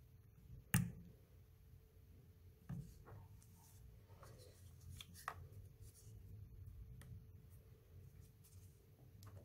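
Faint handling noise of a rubber-coated Bluetooth speaker: fingers rubbing and tapping on the casing and working its rubber port cover, with scattered small clicks, the sharpest about a second in.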